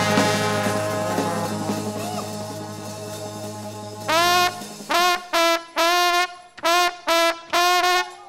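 Trombone shout band, a gospel brass choir led by trombones, holds a loud chord that slowly fades over about four seconds. Then it breaks into short, clipped chords, about two a second, each sliding up into its note.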